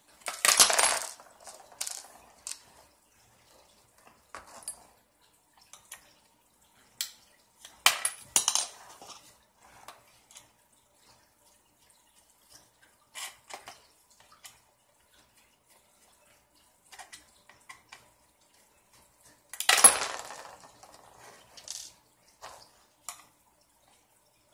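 Small hard parts and tools clicking and clattering on a work surface as an RC buggy's rear end is taken apart and rebuilt: scattered light clicks, with louder clatters near the start, about eight seconds in, and about twenty seconds in.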